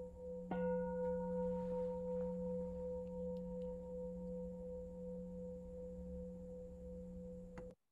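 Singing bowl struck about half a second in while the previous strike is still ringing; its low hum and higher overtones ring on and slowly fade until the sound cuts off suddenly near the end.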